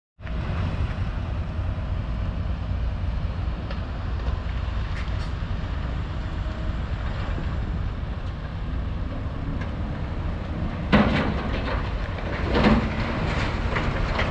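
A steady low rumble from excavators clearing tornado debris, mixed with wind on the microphone. Near the end come two loud clattering crashes about a second and a half apart, like debris being dropped.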